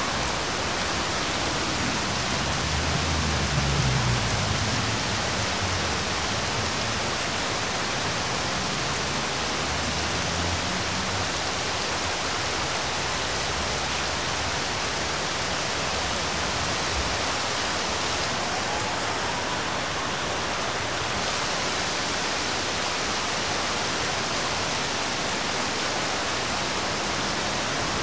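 Steady hiss of heavy rain, with a low rumble that swells a few seconds in and dies away over the following several seconds.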